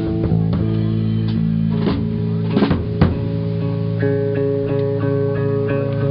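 Guitar music over bass: held chords with a few sharp plucked strikes, the chord changing about four seconds in.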